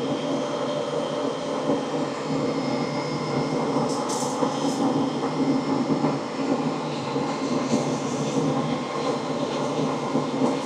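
Coffee roaster's cooling tray running with a freshly dropped small batch of roasted beans: a steady rush of air with the beans rattling continuously, and a few sharper clicks about four seconds in.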